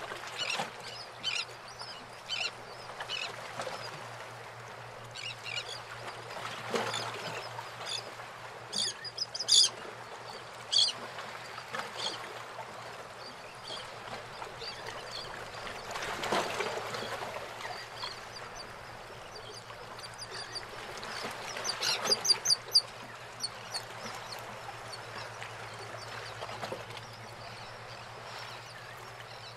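Backyard pool water sloshing and gurgling with small clicks and splashes over a steady low hum, with bird squawks rising above it, loudest in two bursts about ten seconds in and past twenty seconds in.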